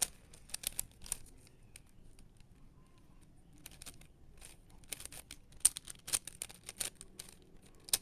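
A plastic puzzle cube being turned by hand: irregular clicks and clacks of its layers, coming in quicker runs in the second half.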